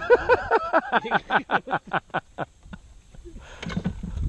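A man laughing hard, a quick run of "ha-ha" pulses that slows and fades out over about two and a half seconds. A brief low rumbling noise follows near the end.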